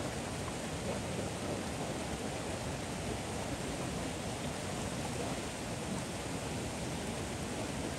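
A river in monsoon flood rushing past: a steady, even noise of fast, churning water.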